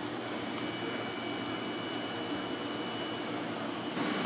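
Steady machine or ventilation hum with a faint high whine in it, louder for a moment near the end.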